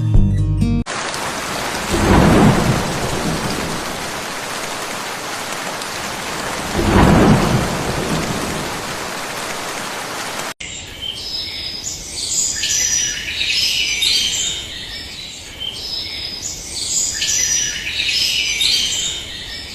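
Heavy rain falling steadily, with two low rolls of thunder a few seconds apart. About halfway through it cuts abruptly to small birds chirping and twittering in quick, repeated high phrases.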